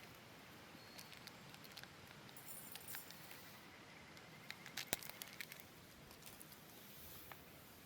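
Faint, scattered small clicks and taps over a soft steady hiss, with one sharper click about five seconds in.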